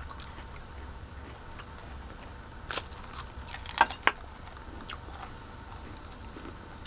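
Crisp crunches of a waffle cone being chewed: a few sharp crackles, the loudest near the middle, over a low steady hum.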